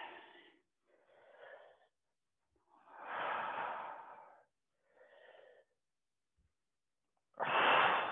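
A woman breathing hard in and out during exercise, in separate breaths about a second long. A louder exhale comes about three seconds in and another near the end, with softer breaths between.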